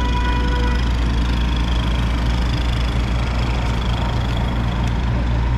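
A motor vehicle's engine idling close by in city street traffic, a steady low hum. A held tone with overtones stops about a second in.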